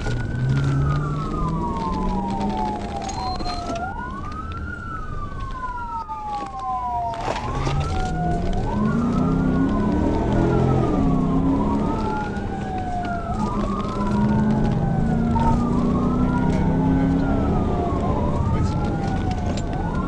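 Police car siren in wail mode, each cycle rising quickly and then falling slowly, repeating about every three seconds. Under it are the patrol car's engine and road noise, with the engine note climbing as the car speeds up hard.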